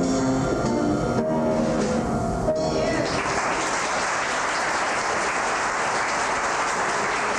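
The last bars of a stage musical number, ending on a final held note about two and a half seconds in, followed at once by audience applause that carries on steadily.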